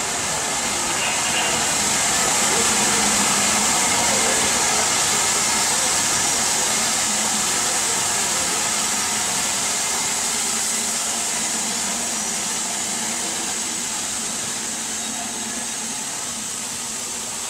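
Steam train rolling in alongside a platform: a steady rushing hiss and rumble that swells about three seconds in, then slowly dies away as it slows.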